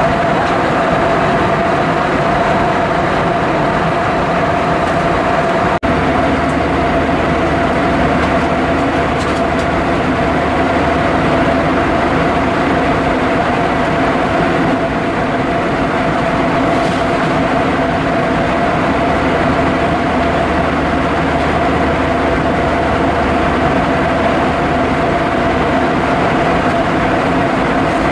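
Cabin noise inside an Airbus A320-232 in flight: a steady rush of air and the drone of its IAE V2500 turbofan engines, with a steady humming tone running through it. A very brief break in the sound about six seconds in.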